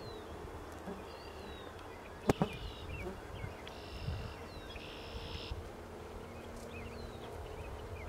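Open-pasture ambience: high buzzy calls repeat several times, each half a second to a second long, with short chirps between them. A sharp double knock comes about two seconds in.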